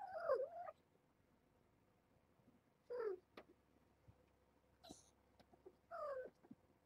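Mother cat meowing three times, about three seconds apart, each call falling in pitch and the first the longest: calling her young kittens to follow her.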